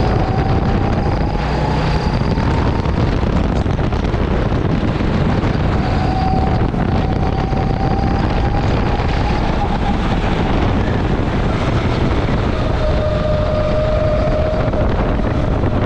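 Go-kart engine running, its pitch climbing over the first couple of seconds, holding in the middle, and dropping lower near the end, over a heavy rumble of wind on the microphone.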